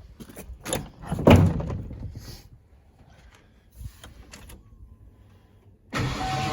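Pickup truck door opened and shut with clicks and knocks, the loudest thud about a second in. Near the end the 1994 Ford F-150's 5.0 V8 starts and runs steadily, the engine now firing on its new ignition module.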